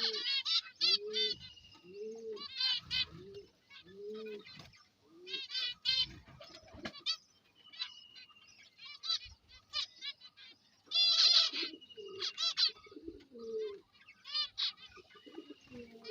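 A flock of caged aviary birds chirping and chattering busily in quick high calls, over a low cooing call repeated about once a second for the first few seconds and again later on.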